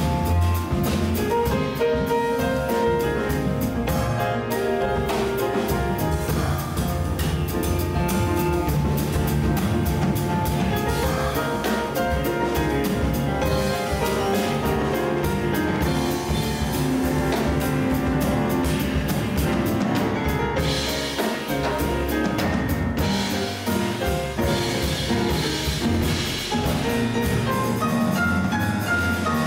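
Jazz piano trio playing live: grand piano, double bass and drum kit with cymbals, all playing together.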